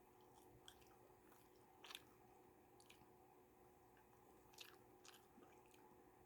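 Near silence with faint eating sounds: a person chewing food, with a few soft clicks, the clearest about two seconds in, over a faint steady hum.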